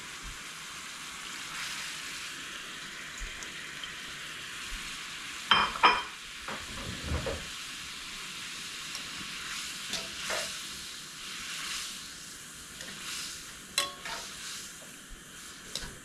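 Water bubbling with a steady hiss in a stainless frying pan on a gas stove, coming back up to the boil after squid pieces are added. Utensils knock and clink against the pan a few times, loudest as two knocks about five to six seconds in and one near fourteen seconds.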